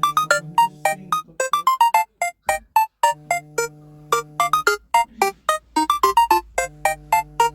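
Phone ringtone: a synthesized melody of quick, short notes over held low chords, the chords dropping out twice and coming back.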